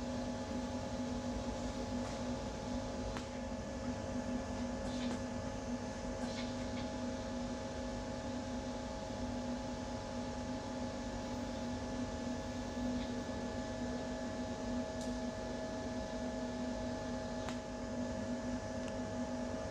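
Powder-coating spray booth running: the extraction fan drawing air through the cartridge filters gives a steady hum with several held tones over an even hiss, while blue powder is sprayed onto hanging coil springs. A few faint clicks come and go.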